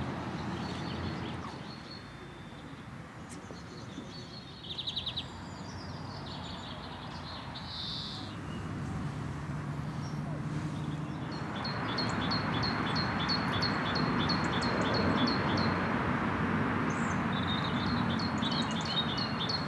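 Small birds chirping, with quick runs of short high notes repeated about four times a second in the second half. A steady background hiss grows louder about halfway through.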